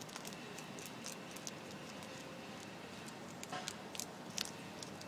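Fox squirrel gnawing through a branch: irregular sharp crunching clicks of its teeth on the wood, busier in the second half.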